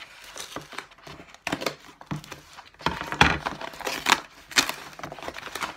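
Cardboard parcel being torn and pulled open by hand, with scraping, tearing and rustling of the box and its packing; the handling gets busier and louder about three seconds in.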